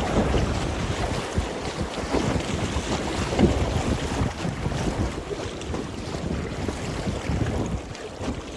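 Swollen river water rushing and splashing around a packraft, with wind buffeting the microphone.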